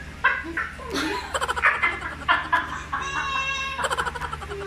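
Several people laughing together in short, uneven bursts, with one person laughing hard.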